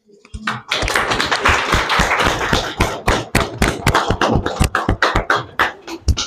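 A small group of people applauding by hand. The clapping starts under a second in and thins to separate claps near the end.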